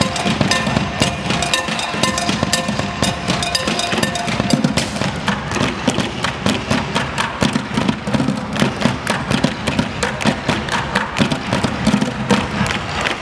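Live street percussion: tap shoes clicking fast on wooden tap boards over bucket and trash-can drumming and a drum kit, in a dense, driving rhythm.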